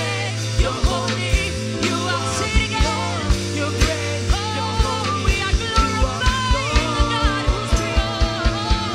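Live worship band music: sustained keyboard and bass chords under a wavering melodic line, driven by a steady kick drum beat that grows busier in the second half.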